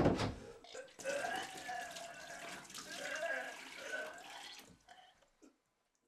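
A man vomiting into a wooden dresser drawer: a few knocks at the start, then about four seconds of liquid gushing and splashing with retching from his throat, fading out near the end.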